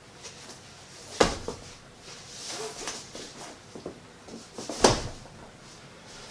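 Two sharp knocks, about three and a half seconds apart, over faint room sounds.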